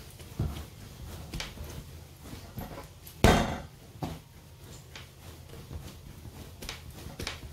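Hands kneading a ball of griwech dough on a wooden countertop: soft irregular pressing, rubbing and knocking as the dough is pushed and turned, with one louder knock about three seconds in.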